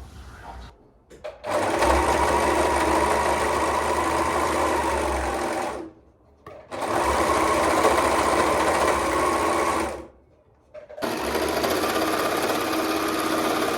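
Electric sewing machine stitching in three long, steady runs, stopping briefly twice in between.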